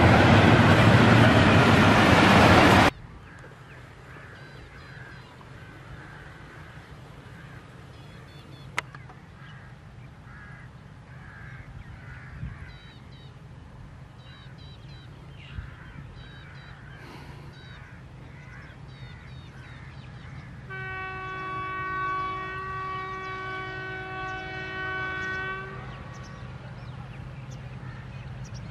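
Approaching PHA-20 diesel locomotive sounding its multi-tone air horn in one long blast of about five seconds, over the low rumble of the oncoming train. Birds chirp before the horn, and a loud rushing noise fills the first three seconds.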